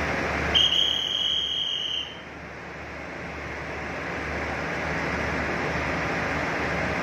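A shrill, steady high-pitched signal tone sounds once for about a second and a half, over the even background noise of a busy railway platform.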